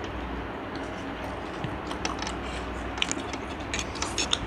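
Close-up eating noises: children chewing and slurping instant noodles, with a run of small sharp clicks and smacks in the second half.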